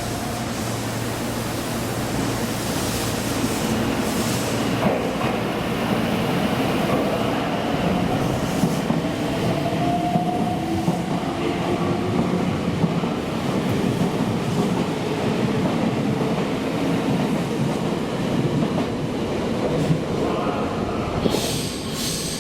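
Meitetsu electric train running along the station platform: a steady rumble of wheels and motors that grows louder over the first few seconds, with a faint whine about halfway through.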